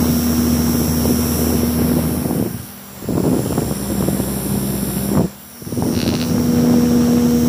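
Small 5 V DC motors spinning the plastic propellers of a homemade toy plane, a steady whirring hum. The sound drops away briefly twice, a little before halfway and about three-quarters of the way through.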